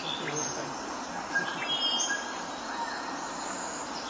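A few faint, short bird chirps over a steady background hiss of outdoor ambience.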